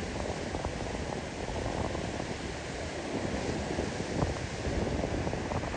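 Wind buffeting the microphone over the steady rush of surf on the beach.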